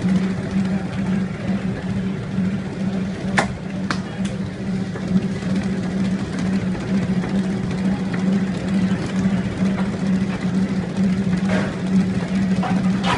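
Spiral mixer's electric motor running with a steady hum as its spiral hook kneads dough in the steel bowl. A couple of sharp clicks come about three and a half seconds in.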